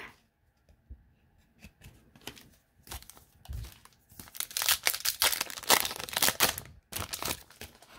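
Trading cards and their foil pack wrapper being handled: quick papery scrapes and crinkles as cards are slid through by hand, sparse at first and busiest from about four and a half to seven seconds in.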